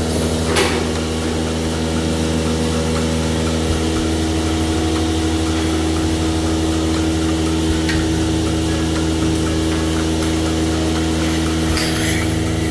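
Milking machinery running with a steady, even hum, with a short click early on and a brief hiss of air near the end.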